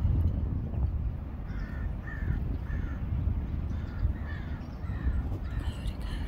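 A bird cawing repeatedly in short harsh calls, two or three a second, from about a second and a half in until near the end, over a steady low rumble.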